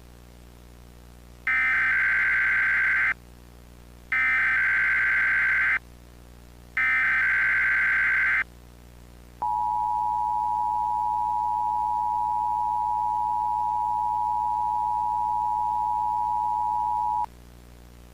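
Emergency Alert System signal: three screeching bursts of SAME digital header data, here coding a tropical storm warning, then the two-tone EAS attention signal held steady for about eight seconds before cutting off.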